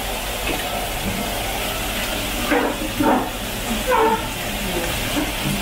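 Steady hiss of a gas wok burner mixed with tap water pouring into a pot, with a few short higher sounds in the middle.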